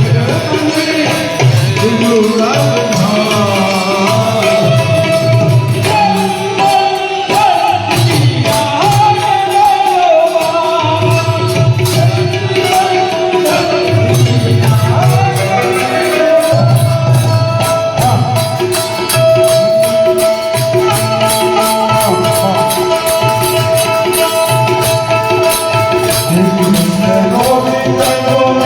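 Gujarati devotional folk song: a voice singing over sustained held instrumental tones, with steady rhythmic hand percussion.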